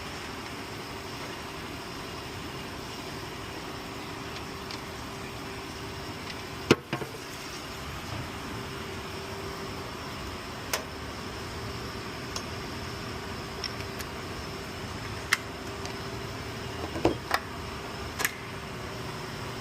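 A steady background hum with a few scattered sharp clicks and knocks, the loudest about a third of the way in and a small cluster near the end.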